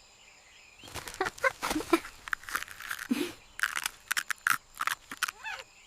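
Irregular crunching and crackling, many quick sharp snaps that start about a second in and die away near the end, with one brief low sound near the middle.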